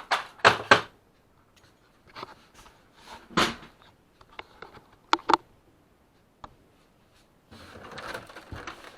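Hands taking the fuser drive gearbox off a Kyocera M2040dn laser printer: a quick cluster of sharp plastic clicks and knocks, a louder knock, two sharp clicks, then rustling and scraping of parts near the end.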